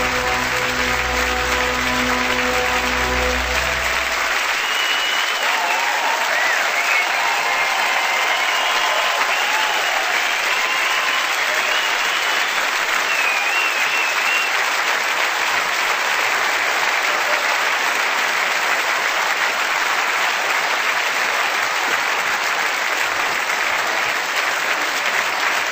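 Theatre audience applauding steadily, with some cheering over the clapping between about 5 and 15 seconds in. The music's final held chord fades out in the first four seconds.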